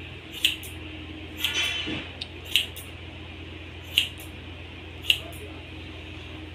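Hairdressing scissors snipping a child's hair: four short, crisp snips, a second or two apart. Between the first two snips there is a brief pitched sound, and a low steady hum runs underneath.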